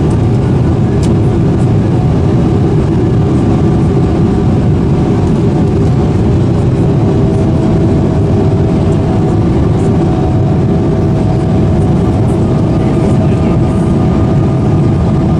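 Steady in-cabin noise of a Boeing 777-300ER descending toward landing: the deep, even rush of its GE90 engines and the airflow over the fuselage, with faint steady engine tones above it.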